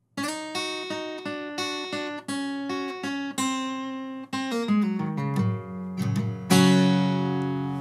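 Steel-string acoustic guitar strung with D'Addario XS coated phosphor bronze strings, played as a run of single plucked notes, then a falling bass line. About six and a half seconds in, a full chord is struck and left ringing, slowly fading.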